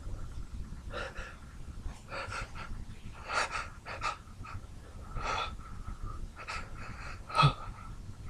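A man's repeated short, sharp gasping in-breaths as a sneeze builds but does not come out, the loudest gasp near the end.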